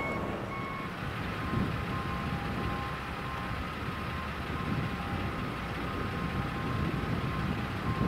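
Vehicles idling, with a repeating electronic warning beep about twice a second over the steady rumble.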